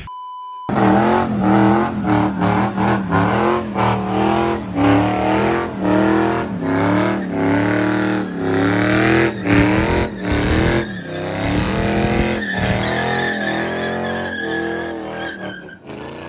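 A car spinning donuts: its engine is held at high revs with the pitch wavering up and down, and the tyres squeal throughout. In the second half a steady high tyre squeal stands out.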